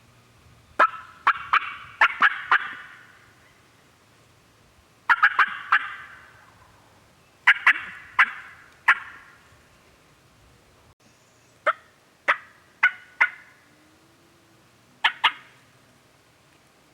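Turkey yelping: five short series of sharp, ringing yelps, about three notes a second, with pauses of a couple of seconds between series.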